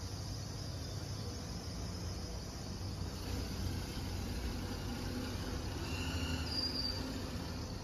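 Evening outdoor ambience: a steady low rumble with insects chirring high above it, and a couple of brief high chirps near the end.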